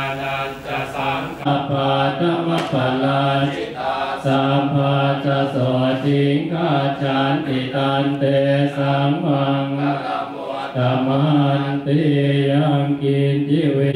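Buddhist monks chanting Pali verses together in low voices in unison, each phrase held on a nearly level pitch with short breaks between phrases.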